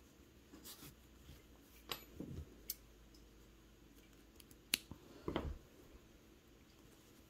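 Small scissors snipping a yarn tail, among soft rustling of yarn and a crocheted piece being handled, with several short, faint clicks.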